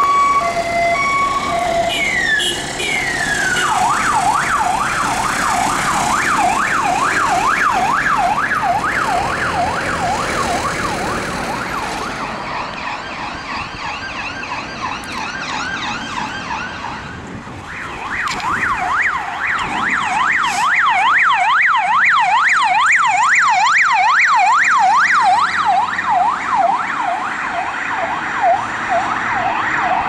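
Emergency vehicle sirens. Broken steady tones at first, then a siren sweeps down into a fast yelp that fades away in the middle. From about 18 seconds a second, louder yelp siren comes close and keeps sweeping rapidly up and down.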